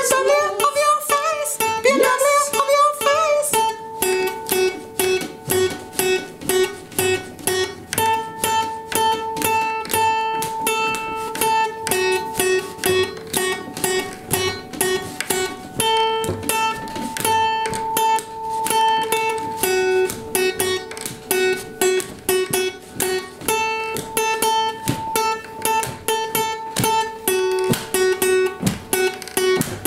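Music: acoustic guitar strummed in a steady rhythm, with a held note sounding over the strumming. A wavering melody line leads in for the first few seconds.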